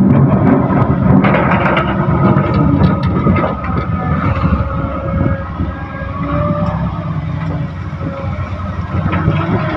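Caterpillar 320D excavator's diesel engine running under working load while it digs soil, with a whine that shifts in pitch and scattered knocks and scrapes. It is louder in the first half and eases a little after about five seconds.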